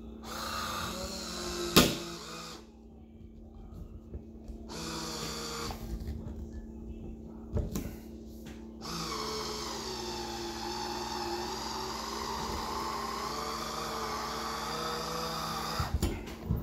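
Electric motor of a Brookstone automatic wine opener whirring in three runs, the last about seven seconds long, as it turns its corkscrew to draw a cork out of a wine bottle; the pitch dips and recovers during the long run. A sharp click comes about two seconds in.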